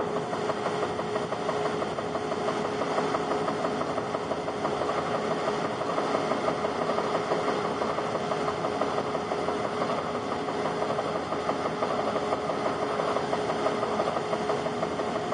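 Stationary edge belt sander running steadily, its motor and belt giving a continuous hum with one steady tone, while a board's edge is sanded against the rounded end drum of the belt to shape a curve, adding a rough sanding noise.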